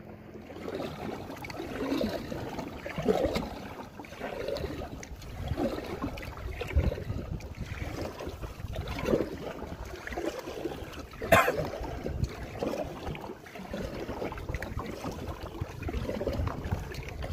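Water splashing and lapping against a moving kayak in choppy water, surging about once a second, with a sharper slap about two-thirds of the way through and wind rumbling on the microphone.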